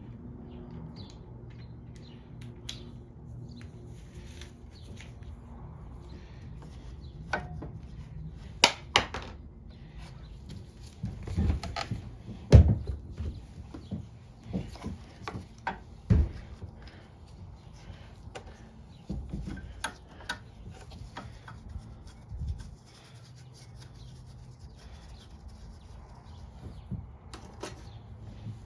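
Scattered clicks, taps and knocks of hand tools and small engine parts being handled as a mower engine's carburetor and breather hose are fitted back, with a sharp knock near the middle.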